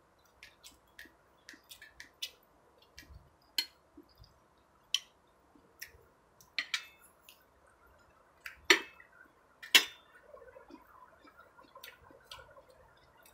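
Close-up eating sounds: irregular wet clicks and smacks of a mouth chewing fried chicken, with two louder smacks about two-thirds of the way in.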